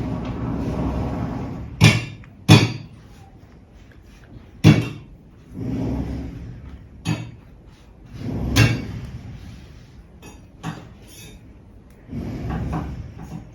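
Home renovation noise: irregular loud bangs and knocks, about six sharp ones, broken up by stretches of low rumbling a second or so long.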